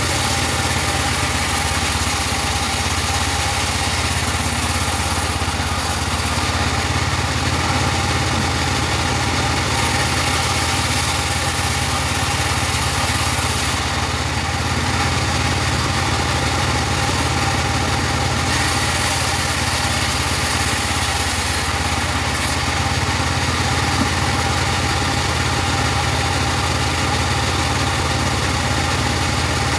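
Engine-driven mobile bandsaw sawmill running steadily, a constant engine drone with a steady whine.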